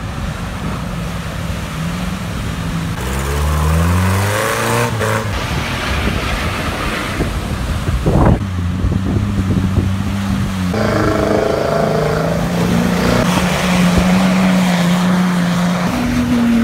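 Off-road 4x4 engines revving hard while driving through water and mud, with spray and splashing. The engine pitch climbs about three seconds in, there is a short sharp crack just past the middle, and the sound changes abruptly several times as one clip follows another.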